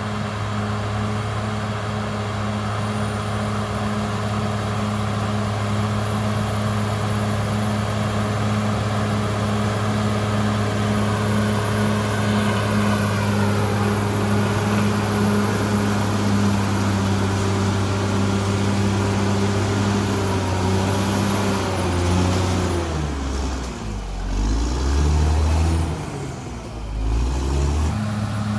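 Cat D6R XL bulldozer's diesel engine running steadily, with a thin high whine over it for most of the time. About 22 seconds in, the engine note drops and wavers low for several seconds, then returns to its steady pitch.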